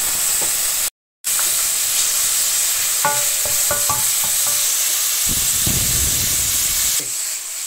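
Marinated beef pieces frying in a very hot oiled wok with a loud, steady sizzle as they are stirred with a wooden spoon. The sizzle cuts out for a moment about a second in and eases slightly near the end.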